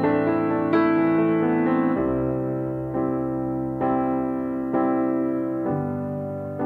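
Background music: a piano playing slow, gentle chords, with a new chord struck about once a second and left to fade.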